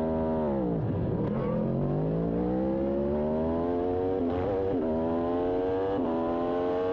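Aprilia RSV4 superbike's V4 engine: revs drop sharply for about a second, then climb steadily under hard acceleration, with a brief dip near the end as it shifts up a gear.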